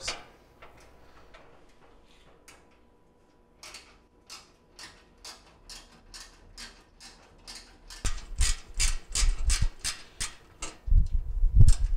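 No. 2 Phillips screwdriver backing out a sheet-metal trim screw: a run of regular ticks, about two a second, growing faster and louder after about eight seconds with low knocks of handling against the panel.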